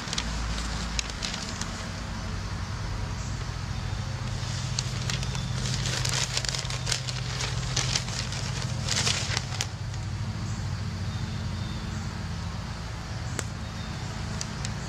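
Newspaper pages rustling in short crisp bursts, busiest in the middle, over a steady low rumble of road traffic.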